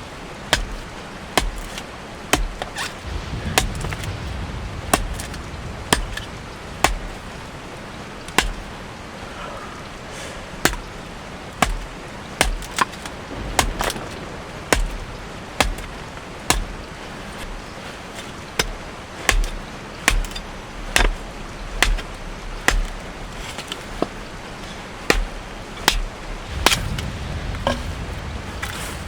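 Wood being chopped for firewood with a blade: a long run of sharp, separate strikes, roughly one a second at an uneven pace.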